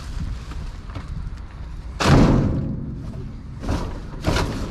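A heavy thud about two seconds in, followed by two lighter knocks near the end: salvaged items being set or dropped down.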